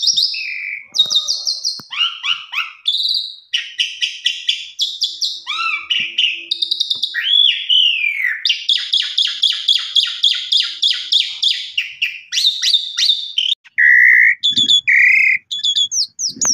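Asian pied starling (jalak suren) in full song: a rapid, varied run of chattering trills, whistled notes and pitch-sliding calls, with a long fast series of repeated clicky notes in the middle.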